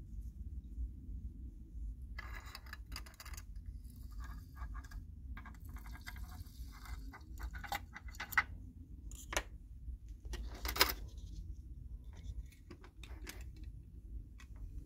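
Handling sounds of a plastic syringe and the small tin-plate parts of a toy steam locomotive: scattered light clicks, clinks and rustles, with two sharper knocks past the middle. A low steady hum runs underneath.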